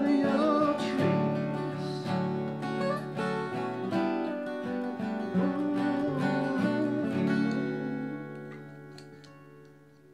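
Two acoustic guitars playing the closing bars of a folk song. About eight seconds in, the last chord rings out and fades away.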